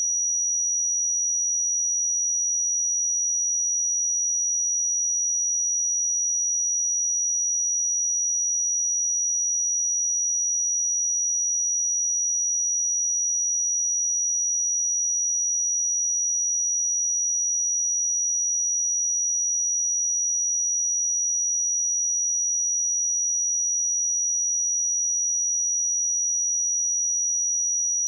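A single pure sine-wave test tone at 5808 Hz, a steady high-pitched whistle held at a constant level.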